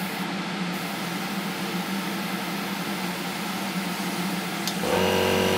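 Steady hiss of an Iwata TRN1 trigger airbrush spraying primer over the rush of a spray booth extractor fan. Near the end a click, then a motor starts with a steady hum: the air compressor cutting in.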